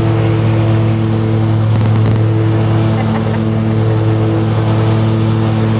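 Engine running steadily at constant speed, an even, unchanging drone.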